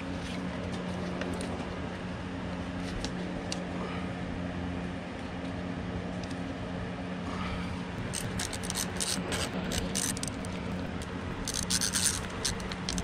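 Socket ratchet clicking in two short runs, the second near the end, as the bolts of a new low-pressure fuel pump are tightened down on the outboard. Before the clicking there is quieter handling of the bolts. A steady low hum runs underneath.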